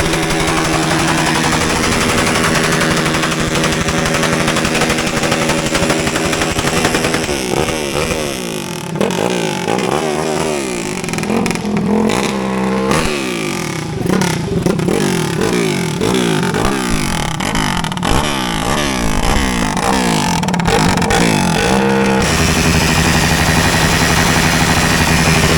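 A Vini 190cc motorcycle engine running steadily, then revved up and down over and over from about 7 seconds in to about 22 seconds in, before settling back to a steady run.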